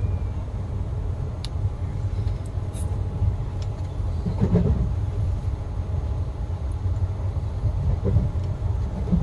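Steady low rumble of a moving Indian Railways passenger train, heard from inside the carriage, with a few faint clicks.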